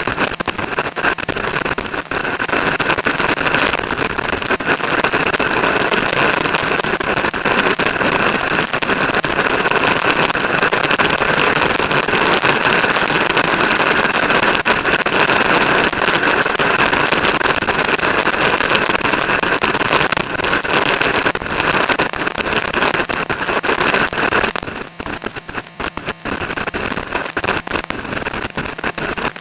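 Loud, steady rushing of strong wind on the microphone, with an engine running underneath. The noise drops sharply about 25 seconds in.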